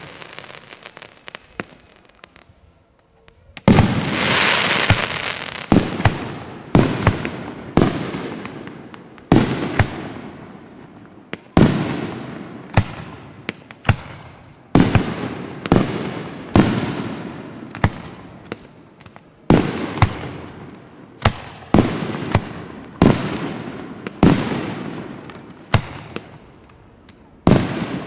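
Fireworks display with aerial shells bursting overhead. After a brief lull, the bangs come in a steady run of about one a second, each trailing off in a rolling echo, and a hiss follows the first burst.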